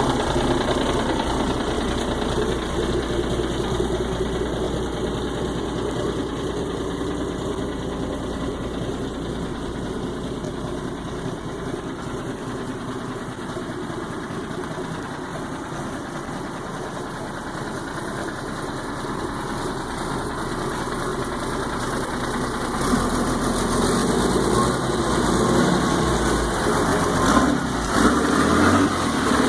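Volvo Penta turbo diesel marine engine idling steadily, growing louder and more uneven for the last several seconds.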